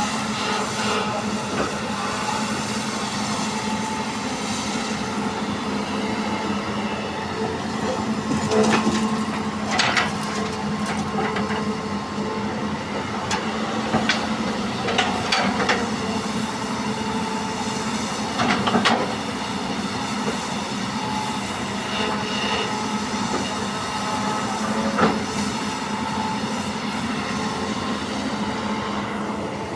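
Hitachi EX200 hydraulic excavator's diesel engine running steadily as it loads soil into a dump truck, with several short, sharp metallic sounds from the working bucket and boom scattered through.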